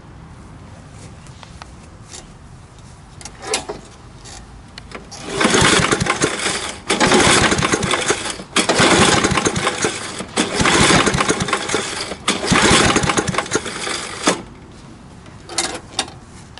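Briggs & Stratton 3.5 hp lawnmower engine being pull-started by its recoil starter five times in a row, each pull about a second and a half long, the engine cranking over without firing because a compression gauge sits in the spark plug hole. This is the cranking for a wet compression test after oil was squirted into the cylinder.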